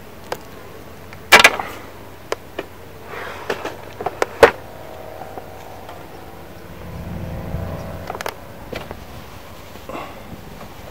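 Sharp clicks and knocks of pole-fishing tackle being handled close by, the two loudest about a second in and about four seconds in, over a faint low hum.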